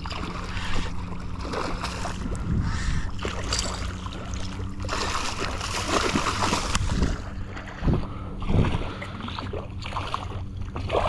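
Shallow water splashing and sloshing as a hooked striped bass thrashes at the surface close to the microphone, with several louder splashes in the second half. Wind buffets the microphone throughout.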